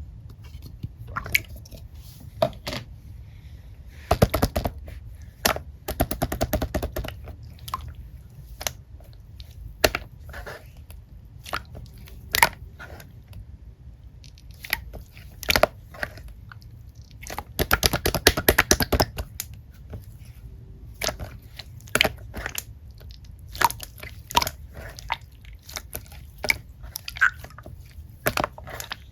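Close, irregular crunching and clicking, with denser crackly stretches about four, six and eighteen seconds in, over a steady low hum.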